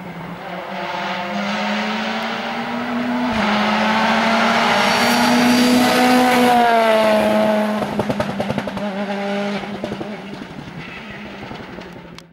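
Rally car engine at high revs approaching, passing close and pulling away, loudest about six seconds in with its pitch dropping as it goes by. A quick run of crackles follows about eight seconds in, then the engine fades into the distance.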